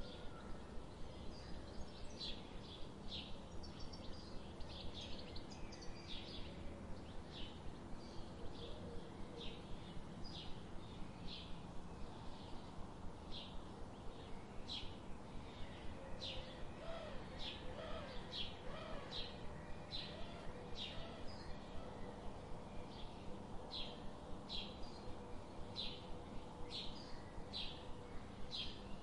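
Forest ambience of a songbird giving short, high chirps over and over, about one to two a second, over a faint steady background hiss. Fainter, lower calls come in briefly about midway.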